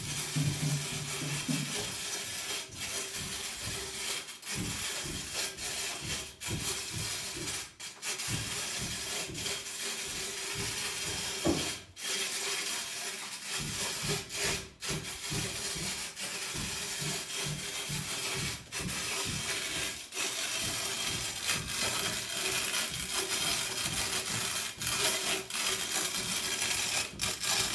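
Hand-cranked metal coffee mill grinding roasted coffee beans: a steady crunching, scraping grind as the crank turns, broken by a few brief pauses.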